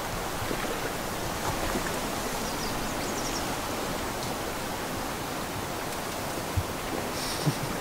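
Steady outdoor ambience: an even hiss with no clear single source, a few faint high chirps about three seconds in, and a soft low knock near the end.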